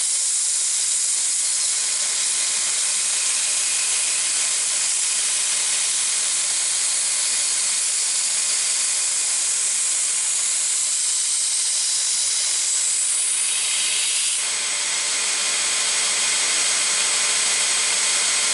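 Belt grinder running with a stainless steel Henckels chef's knife blade pressed to the abrasive belt: a steady grinding hiss over the motor's hum as a secondary bevel is cut along the edge. It eases slightly for a moment about fourteen seconds in.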